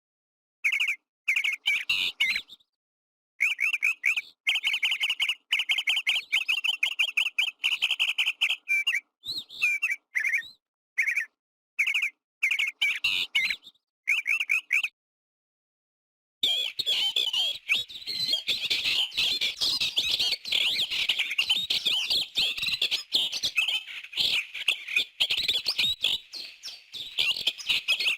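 Small birds chirping in bursts of quick, rapid-fire chirps with short gaps. The sound cuts out for about a second, then a dense chorus of many birds chirping at once.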